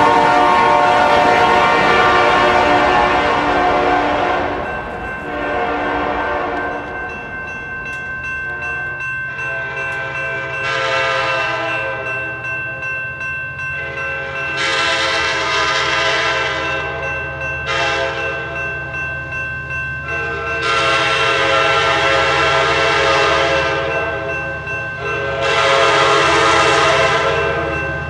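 A diesel locomotive's air horn sounding several long blasts, the train moving past and away, while a grade-crossing warning bell rings steadily.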